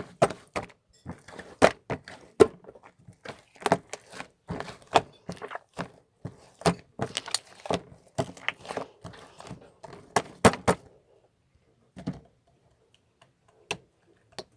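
A quick, irregular run of sharp clicks and knocks, thinning out to a few scattered ones about eleven seconds in.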